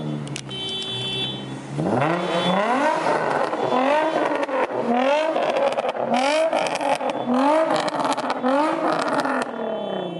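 Infiniti G35 coupe's V6 engine running steadily, then revved again and again as the car pulls out, a rising rev about once a second.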